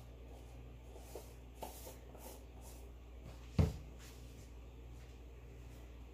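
Quiet kitchen room tone with a low steady hum and a few faint light clicks, broken by one dull thump a little past halfway.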